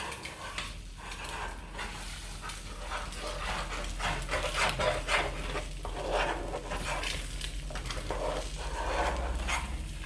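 A spoon scraping around a frying pan as scrambled eggs are stirred, in irregular strokes a few times a second, over the light sizzle of the eggs cooking in oil.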